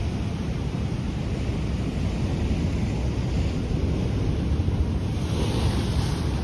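Ocean surf washing over coastal rocks, with wind buffeting the microphone as a low rumble. A hissing wash of surf swells up about five seconds in.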